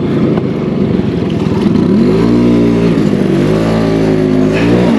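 Old two-stroke scooter engine revved hard while its rear tyre is stuck in sand in a shallow river: a rough low running at first, then from about two seconds in the revs climb, dip briefly and climb again, falling away just at the end.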